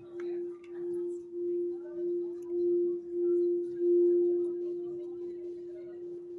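Crystal singing bowl played by rubbing its rim: one steady tone that pulses a little under twice a second and swells louder until about four seconds in, then rings on and slowly fades once the rubbing stops.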